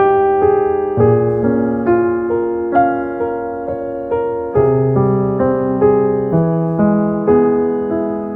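Gentle solo piano music: single notes and chords struck about twice a second, each ringing and fading before the next.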